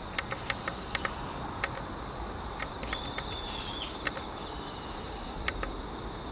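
Small tactile buttons on an Xcortech X3200 MK3 airsoft chronograph clicking, a dozen or so quick presses as its menu is stepped through. About three seconds in, a high whistled call lasting about a second sounds over a faint steady high tone.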